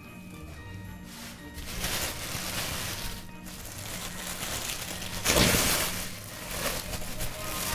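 Tissue paper rustling and crinkling as it is handled and pulled out of a gift package, with the loudest crumple about five seconds in, over soft background music.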